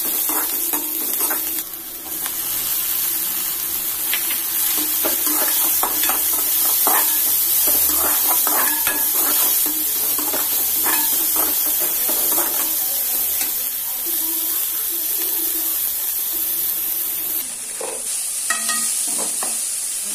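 Onions, curry leaves, chillies and tomatoes sizzling in hot oil in a metal kadai, stirred with a slotted steel spoon that scrapes and clinks against the pan over and over. The hiss of the frying eases a little near the end.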